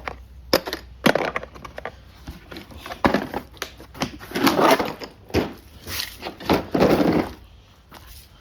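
Gear and supplies being gathered up and put away by hand: irregular crunching and rustling with several sharp knocks.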